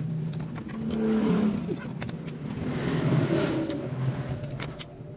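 Sharp metal clicks as a long socket extension and tools knock against the CVT cover bolts of a scooter, over a steady engine hum running nearby.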